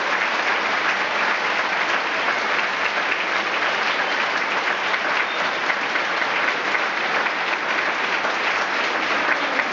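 Concert audience applauding steadily, many hands clapping together.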